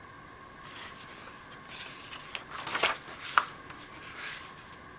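Pages of a thin children's picture book being turned by hand: a few soft paper rustles, with a couple of light, sharper taps in the middle.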